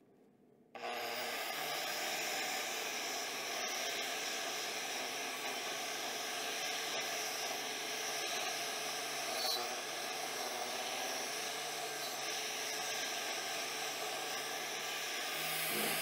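Angle grinder fitted with a wire wheel, started about a second in and running steadily as it brushes the welds clean on raw steel; this is the final clean-up after chipping off spatter.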